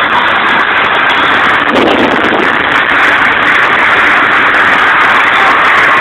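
Cars racing side by side at highway speed, a Mazda RX-8 among them: a loud, steady rush of engine, tyre and wind noise, with a brief deeper swell about two seconds in.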